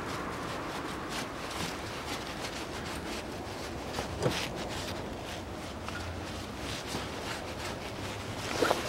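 Cloth rag rubbing and wiping over the rear differential housing: a soft, irregular scrubbing, with a brief squeak about four seconds in.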